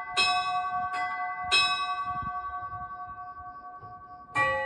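Bells struck one after another at different pitches, each note ringing on and slowly dying away; a lower note comes in near the end.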